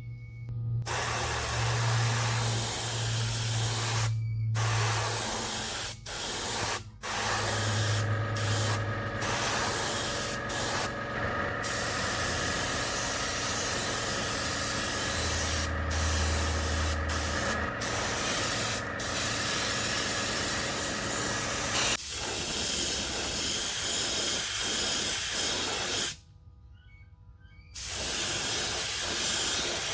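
Airbrush spraying metallic gold paint onto a resin fishing lure in long, steady hisses. The hiss cuts off briefly many times as the trigger is let go, and stops for about two seconds near the end.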